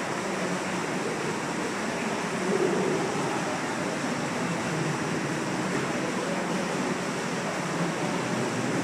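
Steady rush of a cave waterfall, about 40 feet high, pouring into a pool.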